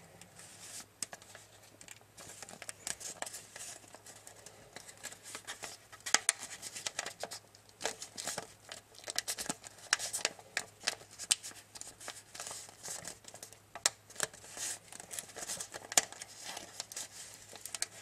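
Tissue foil paper crinkling and crackling as it is folded and creased by hand, in many irregular sharp crackles.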